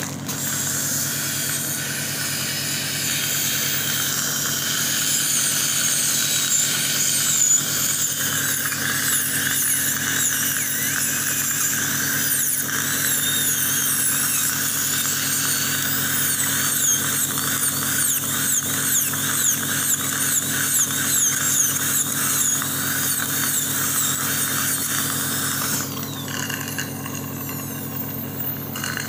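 High-speed dental handpiece whining as it cuts through a porcelain-fused-to-metal bridge, its high pitch wavering up and down as it works, over a steady low hum. The whine stops near the end.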